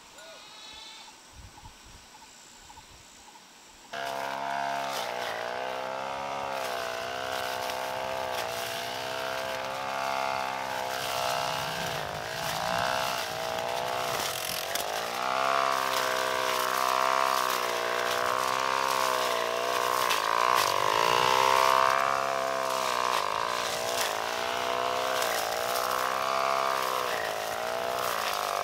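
A small engine or motor running, starting abruptly about four seconds in, its pitch rising and falling as its speed changes.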